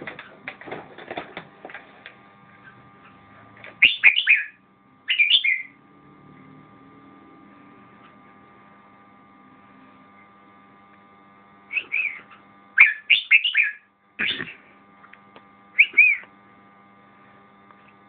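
Red-whiskered bulbul singing short, loud, warbling phrases: two about four to five seconds in, then four more close together from about twelve to sixteen seconds in. A steady electrical hum runs underneath.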